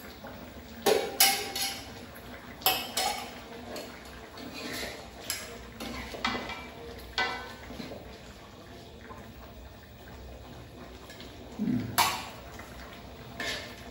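Metal cooking utensil clinking and scraping against a large metal wok and a ceramic plate as food is stirred and spooned out. Irregular clinks and knocks, the sharpest about a second in and near the end.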